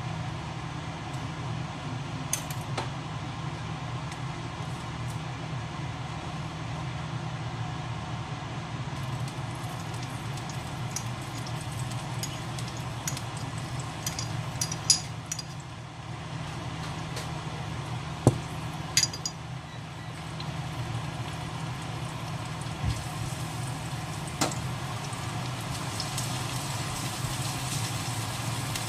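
A steady low machine hum, with a few sharp clinks of a dish and utensils against a wok, the loudest around the middle.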